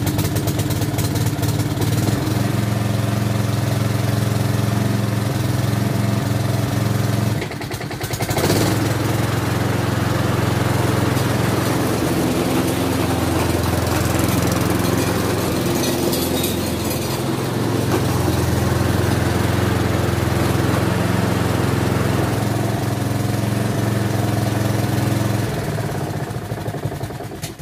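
Petrol lawnmower engine running steadily after a carburettor clean, as it should. It falters briefly about a quarter of the way in, then picks up again, and is shut off near the end.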